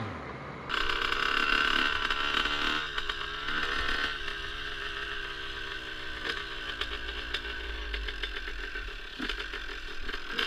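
Motorcycle engine running at low speed, heard from the rider's seat, with a steady low rumble. The sound changes abruptly less than a second in.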